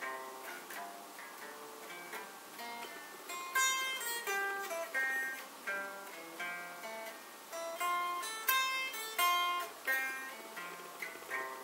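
Electric guitar playing a slow arpeggio exercise, picked one note at a time at a few notes a second, with a few louder accented notes.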